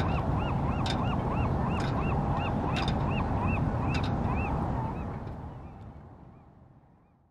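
Outro music: a steady run of short honk-like notes, about three a second, over a low rumble and a soft beat, fading out over the last two seconds.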